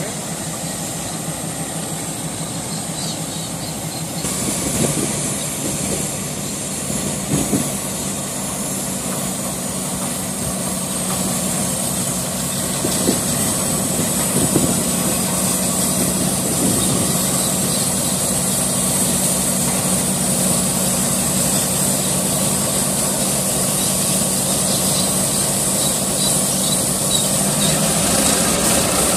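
Diesel locomotives hauling a grain train, moving slowly with their engines running in a steady low drone that grows gradually louder as they draw near.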